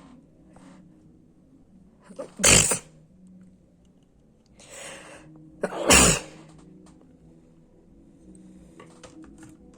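A person sneezing twice, a little over two seconds in and again about three and a half seconds later, each sneeze loud and short and led in by a breath in.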